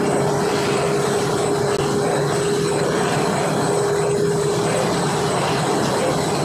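Steady mechanical running noise: a constant rushing hum with one steady mid-pitched tone through it.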